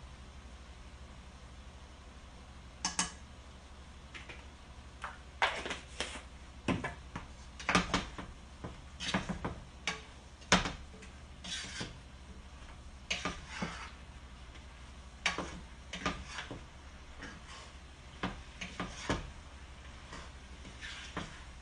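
A cooking utensil clinking and scraping against a pan as mixed vegetables are stirred. The irregular knocks begin about three seconds in and carry on to the end, over a steady low hum.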